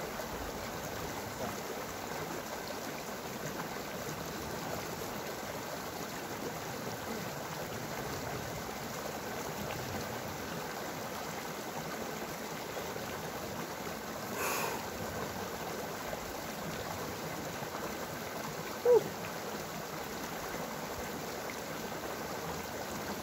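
Mountain stream running steadily. About nineteen seconds in, a short, loud call falling in pitch cuts across it.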